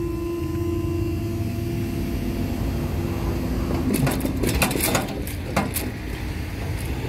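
Level crossing barrier mechanism humming steadily while the barriers rise, stopping just before the halfway point, followed by a short run of clicks and knocks.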